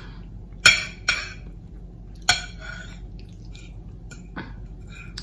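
Metal fork clinking against a plate of food: a few sharp clinks in the first two and a half seconds, each ringing briefly, and a fainter tap near the end.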